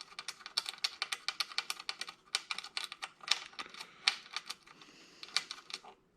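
Rapid, uneven run of sharp clicks and small metallic taps from hand tools working on the sheet-metal console and its circuit boards during a teardown. The clicks thin out near the end.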